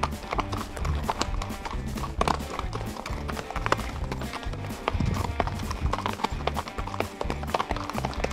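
Hoofbeats of Appaloosa horses walking on a stony dirt trail, as irregular clicks and clops of hooves on gravel and stones, under background music with a steady bass line.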